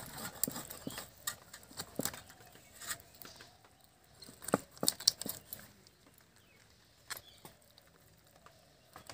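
Irregular sharp clicks and knocks of a fresh rui (rohu) fish being cut up with a blade, with a louder cluster of knocks about halfway through.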